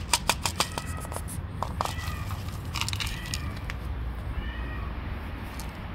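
Stray cats meowing, a few short meows about two and four seconds in. Near the start comes a quick run of sharp clicks or taps.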